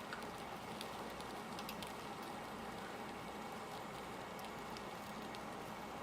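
Eel sizzling as it grills: a steady hiss with scattered small pops and crackles.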